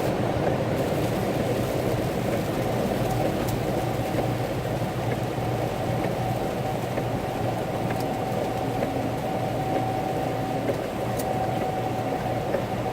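Steady engine and cabin drone inside a truck cab, a low hum with a constant higher tone, and a few faint ticks of rain on the cab.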